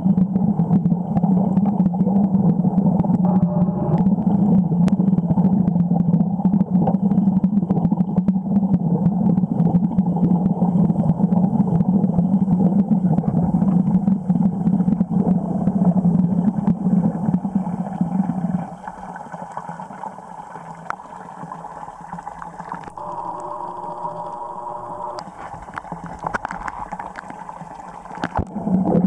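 Muffled underwater sound picked up by a submerged camera in a creek pool: a steady low hum with a murky wash of water over it. About two-thirds of the way through it drops sharply to a quieter murmur with a few faint steady tones, and it swells again near the end as the camera moves.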